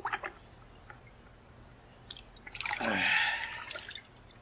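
Water sloshing and streaming off a rotting wolf head as it is lifted out of a bucket of maceration water, in a loud splash that runs for over a second, beginning about two and a half seconds in. A few faint drips and small splashes come first.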